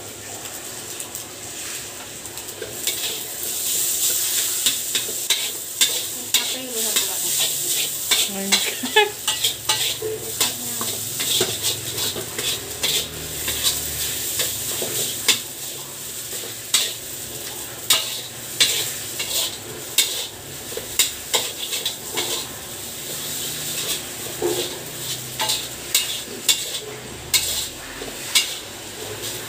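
Metal spatula scraping and tapping against a metal wok in quick, irregular strokes as fried rice is stir-fried, over a steady sizzle of frying.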